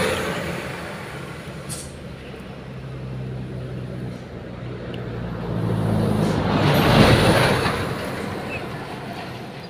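A motor vehicle passing: a low engine hum swells to its loudest about seven seconds in, then fades away. At the start, an earlier passing vehicle is still dying away.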